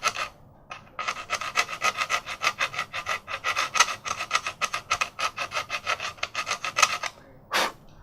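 Hand file being worked back and forth to taper the edge of an older Prime splitboard binding, in quick rasping strokes of about four or five a second. The strokes pause briefly just after the start, stop about seven seconds in, and one more stroke follows near the end.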